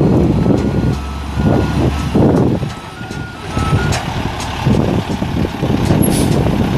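Cummins M11 turbo diesel in a 1996 International 2574 dump truck running as the truck moves over gravel, its engine note easing off about three seconds in. The truck's reversing alarm beeps faintly over the engine. A brief high squeal comes about six seconds in.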